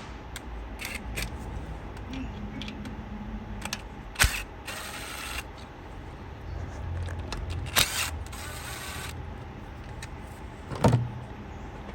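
Hand tools working on the engine's fittings: sharp metal clicks about three times, and two short spells of scraping and rattling, as a 10 mm bolt is undone.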